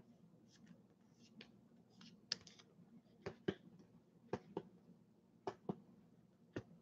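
Faint, sharp clicks, mostly in pairs about a quarter second apart, coming roughly once a second from about two seconds in.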